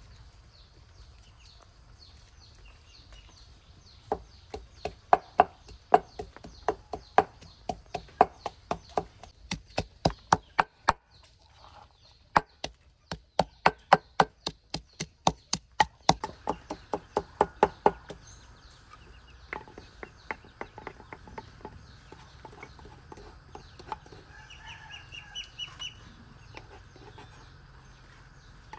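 A knife or cleaver chopping on a wooden board, about three strikes a second in two long runs, followed by lighter, sparser strokes.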